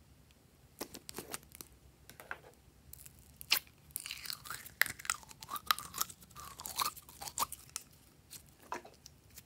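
Store-bought pink glitter slime being squeezed and pulled out of a soft plastic raspberry-shaped container: a few sharp crackles and clicks, then a dense run of sticky squelches and crackling from about three and a half to seven and a half seconds in, with a couple more crackles near the end.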